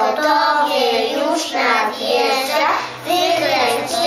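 A group of young children reciting a rhyme together in unison, in a sing-song chant.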